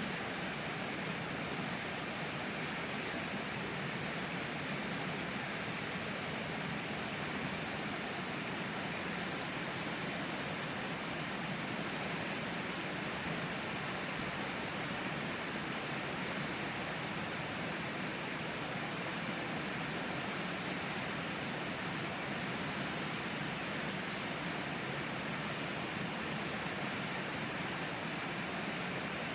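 The Tama River flowing right beside the camp: a steady, even rush of water, with a steady high-pitched tone above it.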